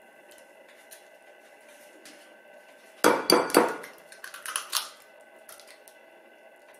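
Kitchen dishes and cutlery clattering: a quick run of clinks and knocks about three seconds in, lasting under two seconds, over a faint steady hum.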